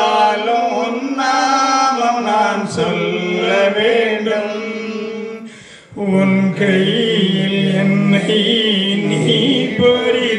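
A male voice singing a Tamil devotional hymn over instrumental accompaniment, with a brief drop about six seconds in.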